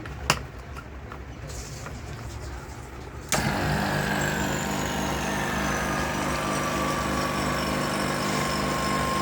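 A click, then about three seconds in a vacuum pump starts and runs steadily. Its whine drifts slowly down in pitch as it draws the refrigerator's sealed system down to vacuum before gas charging.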